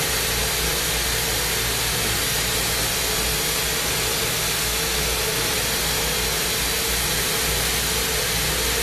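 Glassblowing torch burning with a steady rushing hiss, over a faint steady hum.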